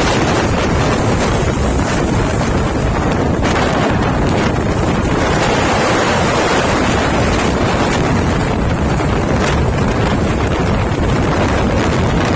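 Heavy wind buffeting the microphone over the steady rumble of a truck on the move.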